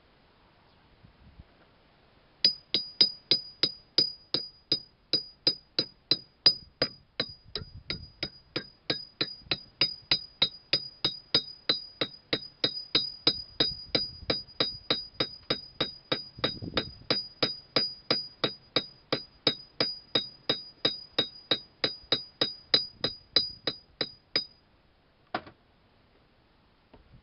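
A hammer striking metal in a steady run of ringing taps, each with the same bright ring, about three a second for some twenty seconds. One last tap comes about a second after the run stops.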